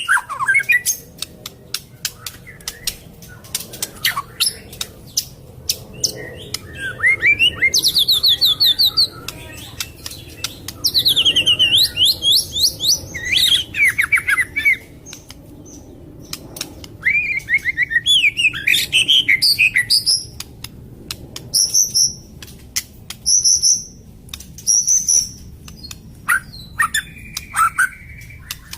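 White-rumped shama (long-tailed murai batu) singing: varied phrases of clear whistles and quick up-and-down sweeps, mixed with many sharp clicking notes, with short pauses between phrases.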